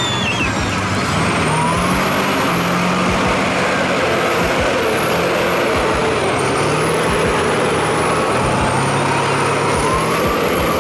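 Heavy diesel vehicle engine running hard, its pitch shifting up and down, with a thin high whistle rising and falling above it.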